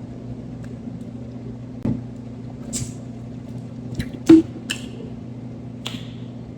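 A sparkling water container being handled and opened: a few clicks and short hisses, the loudest a sharp click about four seconds in, over a steady low hum.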